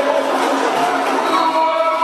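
Capoeira Angola roda music: a group of voices singing in chorus over berimbaus, pandeiros and an atabaque drum.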